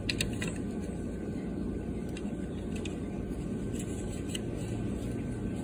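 A steady low background rumble, with a few faint clicks as the plastic candy-machine wheel and plate are handled.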